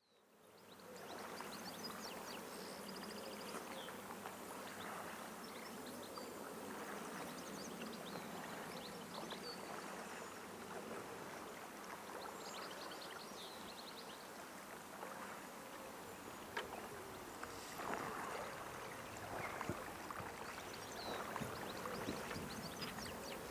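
Riverside ambience fading up from silence: a steady wash of flowing water with short high chirps throughout. Sharp knocks and splashes come more often in the last third.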